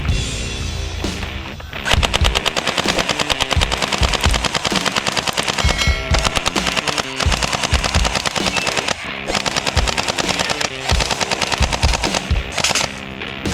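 Rapid automatic gunfire sound of an AK-47 submachine gun, a fast string of shots starting about two seconds in, broken by short pauses, with music underneath.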